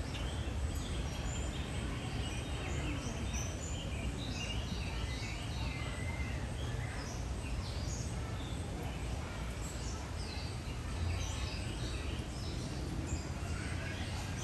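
Birds chirping with many short, scattered calls over a steady low rumble of outdoor background noise.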